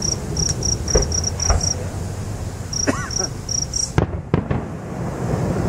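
Distant fireworks shells bursting: several sharp bangs, the loudest about four seconds in, over steady chirping crickets. The bangs come from roughly half a mile off and arrive a few seconds after the bursts are seen.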